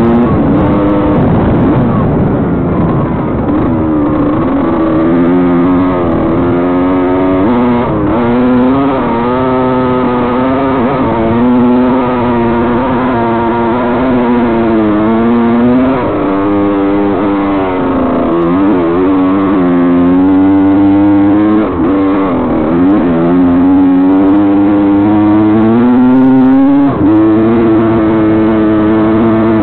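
Honda CR two-stroke dirt bike engine revving up and down continuously as the throttle is worked over rough ground, its pitch rising and falling every second or two, heard close up from an onboard camera over the rumble of the ride.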